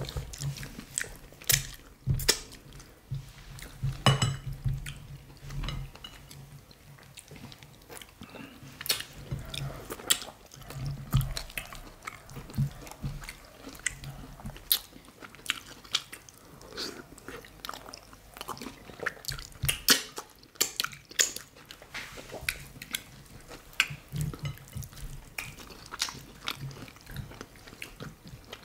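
Close-up mouth sounds of people eating fufu and banga soup by hand: chewing and biting, with frequent irregular wet clicks and smacks.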